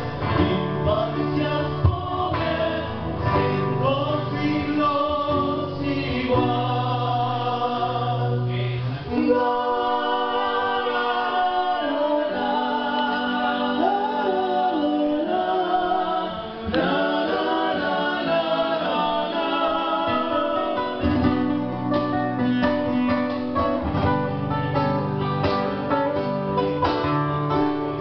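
Live Argentine folk band: two strummed acoustic guitars and a bombo legüero drum behind several men singing together into microphones. The low drum and bass notes drop away for about ten seconds in the middle while the voices and guitars carry on.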